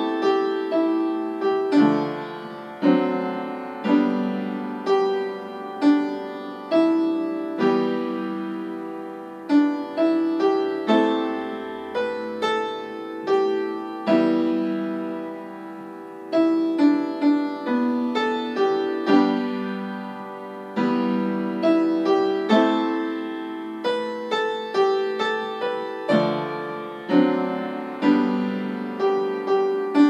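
Upright acoustic piano played by a young child: a slow melody of notes and simple chords in the middle register, struck about once a second, with a few notes held and left to fade.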